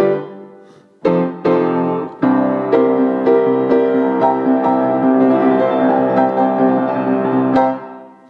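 Piano played: a struck chord rings and dies away, two more chords follow a second apart, then steady, busy playing carries on before the final notes fade out near the end.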